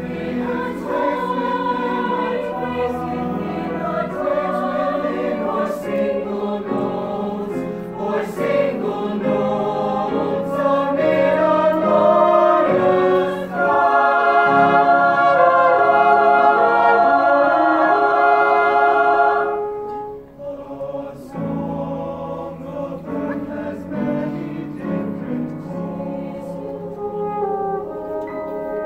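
Mixed choir singing in harmony, accompanied by French horn and piano. It swells to its loudest passage about halfway through, then drops away suddenly and carries on softly.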